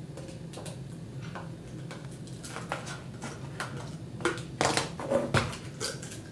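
Metal clicks, knocks and scrapes of a tin can being handled and worked open, growing louder and closer together in the last two seconds, over a low steady hum.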